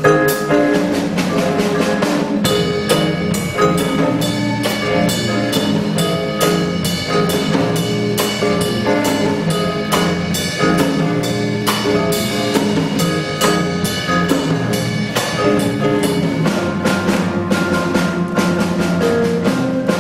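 School jazz band playing live: brass and other horns holding notes over a drum kit keeping a busy, steady beat.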